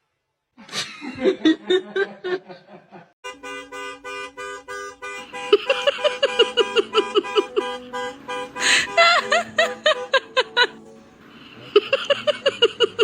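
A quick run of laugh-like bursts in the first few seconds, then playful background music with fast, bouncy repeated notes.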